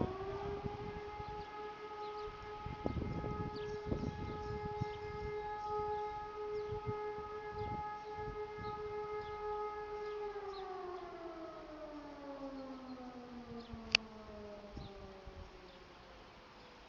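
E57 motor-driven fire siren sounding one blast of the 'Feueralarm' test signal. It reaches full pitch right at the start and holds one steady tone for about ten seconds. It then winds down slowly, falling in pitch and fading as the rotor coasts to a stop.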